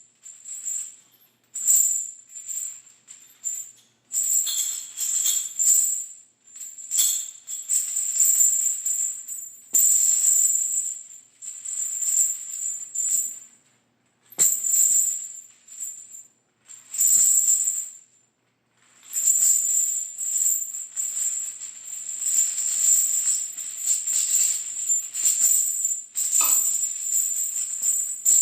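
Large metal chains rattling and jingling in repeated bursts, some under a second and some several seconds long, with short silent gaps between them.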